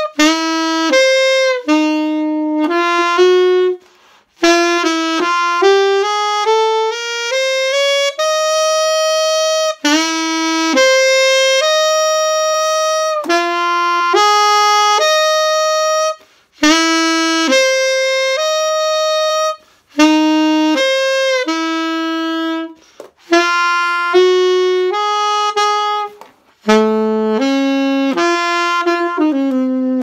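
Unaccompanied alto saxophone playing a slow melody of long held notes in phrases, with short breaks for breath every few seconds.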